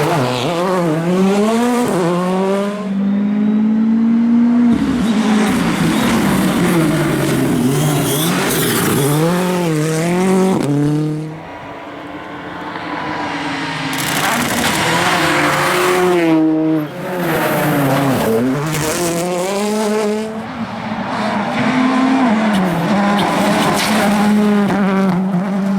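Competition rally car engines revving hard through repeated gear changes, the pitch climbing and dropping again and again as the cars pass, with tyre noise underneath.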